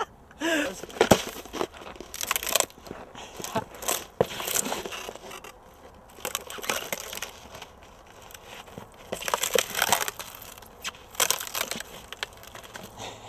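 Packed snow crunching in irregular bursts underfoot as a snowboarder moves about and handles his board on it.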